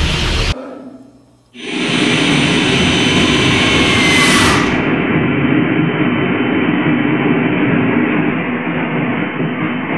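A loud, steady rushing rumble of sound-design noise, train-like, that cuts in suddenly after a brief lull, carries a faint falling whistle for a moment, and becomes muffled about five seconds in.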